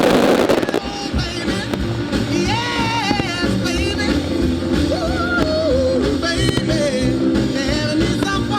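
Rock-style song with a singing voice and a steady beat. A loud burst of firework crackle sounds right at the start.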